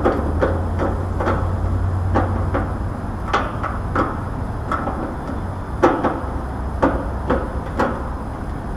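Irregular light knocks and clicks of hands and tools working at the metal electrical panel of an air conditioner condensing unit, about fifteen in all, over a steady low rumble.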